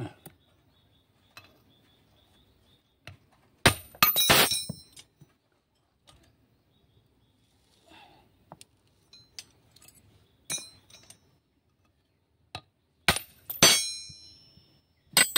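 Sharp metallic clinks of small steel valve parts and spanners as the valve springs, retainers and collets come off an engine cylinder head. The clinks ring and come in two bunches, a few seconds in and near the end, with lighter ticks between.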